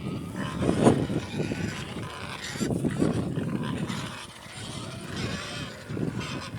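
Pigs grunting, a rough, uneven chorus of grunts.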